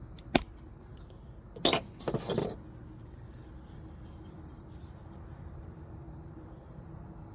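Metal hand tools clinking as they are handled: a sharp click, then a louder clink with a bright ring and a short rattle about two seconds in.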